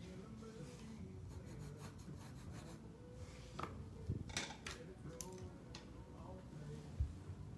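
Soft scratching of a pen on watercolour paper, then a run of sharp clicks and taps as the art tools are put down, and a single low thump near the end as the phone is handled.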